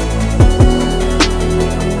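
Electronic background music with a heavy beat: deep bass and punchy kick drums with snare hits.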